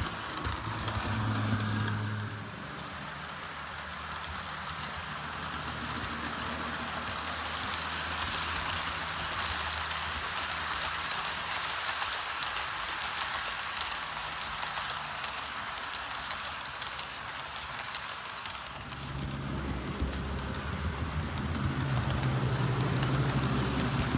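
HO scale model train rolling on its track: a steady rolling clatter of wheels on rails over a low motor hum. The hum grows louder from about 19 seconds in.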